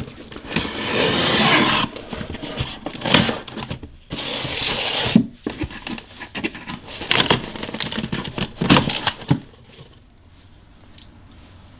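A mailed package being handled and opened by hand: irregular rustling, tearing and scraping of the packaging with a few sharp clicks, going quieter about nine and a half seconds in.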